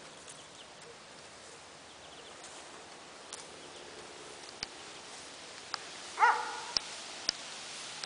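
A single short animal call, bark-like, about six seconds in, over a faint outdoor background with a few light clicks.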